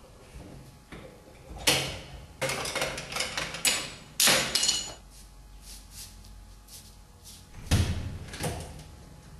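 A series of knocks and thuds, door- or drawer-like: one sharp knock, then a quick run of several, then two more near the end.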